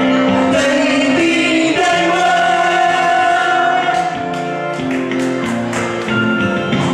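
A singer performing into a microphone over musical accompaniment, with long held notes.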